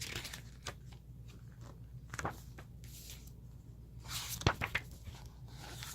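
Paper pages of a guide book being turned and handled: soft rustles and light taps, with a louder rustle of paper about four seconds in.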